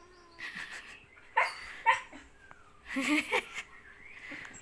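Dog giving short barks: two sharp ones about a second and a half in, then a rougher, noisier burst about three seconds in.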